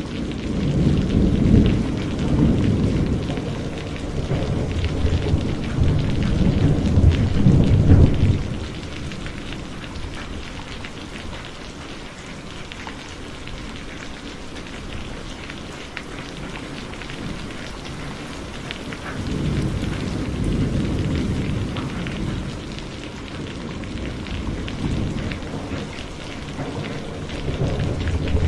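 Heavy rain falling steadily, with rolling thunder: a long low rumble for about the first eight seconds, another about two-thirds of the way through, and a third starting near the end.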